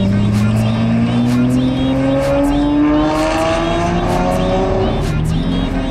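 Straight-piped Lamborghini Murcielago V12 accelerating hard away, its exhaust note rising steadily in pitch, then dropping at a gearshift near the end and climbing again.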